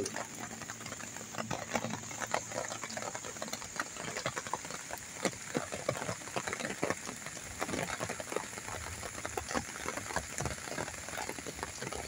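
Rain falling, a steady hiss with a dense, irregular crackle of drops hitting close by.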